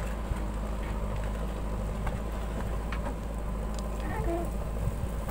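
JCB 3DX backhoe loader's diesel engine running steadily under load as the backhoe bucket digs into soil.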